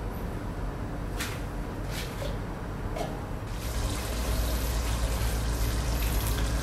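A ladle clinks against a pot a few times while stirring pork stew, then the stew simmers with a steady bubbling hiss that grows louder about halfway through as the sauce reduces.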